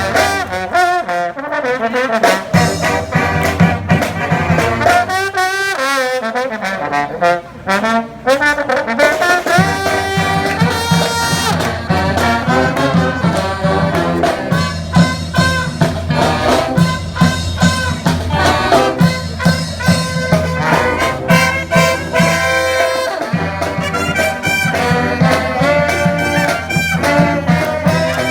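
Brass band playing live: trumpets and trombones over a pulsing low bass line. Around five seconds in the bass drops out and the horns play alone for a few seconds before the bass comes back in.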